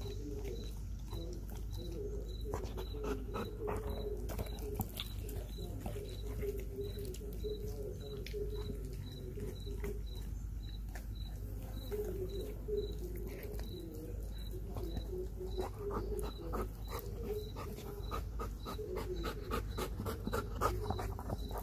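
Belgian Malinois chewing a raw whole chicken, with many sharp crunches and clicks of bone, and the dog panting.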